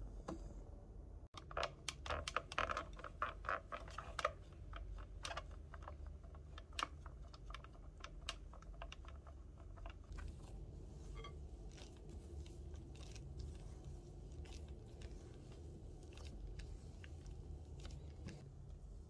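Flour being stirred into a sweet batter in a glass bowl. A utensil scrapes and clicks against the glass in a quick, dense run for the first several seconds, then the mixing goes on softer, with scattered clicks over a low steady hum.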